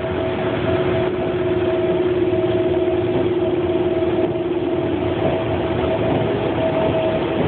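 Inside a moving commuter train: the steady rumble and rush of the train running, with a constant hum over it.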